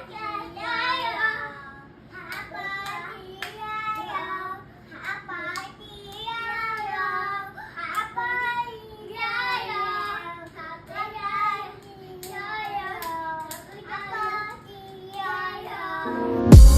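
A young child singing and babbling wordlessly in a high voice, in short up-and-down phrases. Loud music cuts in suddenly right at the end.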